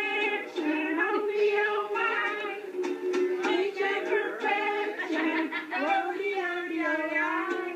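Several people singing a song together with ukulele accompaniment.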